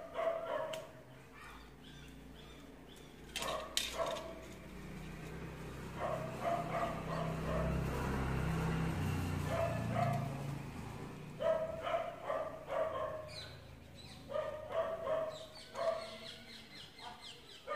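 A dog barking in short, repeated barks, in several runs, with a low rumble swelling and fading in the middle.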